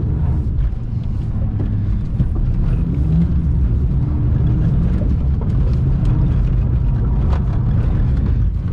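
Ford FG Falcon driven hard, heard from inside the cabin: a loud, steady rumble of engine and road noise, the engine note rising and falling as the car is thrown through the corners.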